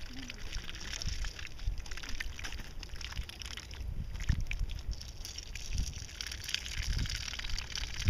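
Female mallard dabbling in a shallow stream, its bill working the water in a run of small irregular clicks and splashes over trickling water. Several low thumps come in the second half.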